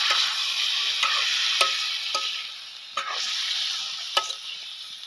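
Meat, onions and spices sizzling in a metal wok while a metal spoon stirs them, clinking and scraping against the pan again and again. The sizzle eases a little about halfway through.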